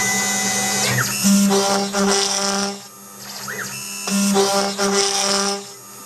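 CNC router at work: the stepper motors whine in shifting steady tones as the axes move, with short rising and falling sweeps as they speed up and slow down, while the 4 mm end mill in the spindle cuts 10 mm acrylic. The sound eases off briefly about three seconds in and again near the end.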